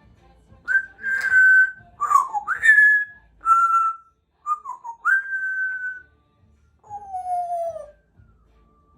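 Congo African grey parrot whistling a run of about eight clear notes, some held steady and some sliding up or down, ending with a longer falling whistle.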